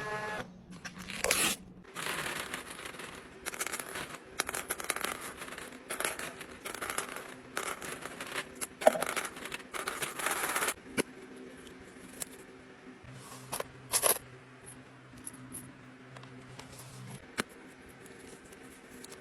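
A package being unboxed: repeated tearing and crinkling of wrapping for the first ten seconds or so, then quieter handling with a few sharp clicks.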